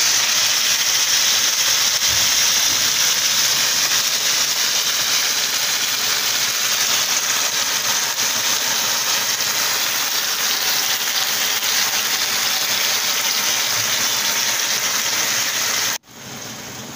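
Thin raw beef steaks sizzling steadily in very hot oil in a frying pan. Near the end the sizzle drops suddenly and goes on more quietly.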